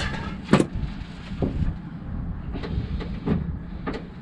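A heavy starter motor dragged and shifted across a concrete driveway: low scraping with about five short knocks spaced through it.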